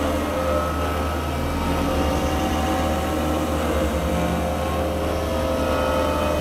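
Electronic drone score for the dance: a dense, steady drone of many held tones over a low rumble that pulses faintly, without a beat.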